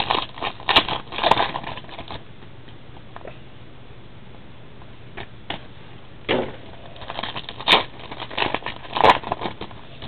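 Football trading cards and pack wrappers handled by hand: quick crackling, clicking and rustling as cards are flipped and a pack is worked open. The sound comes in two bursts, one in the first two seconds and another from about six seconds in, with a quiet gap between.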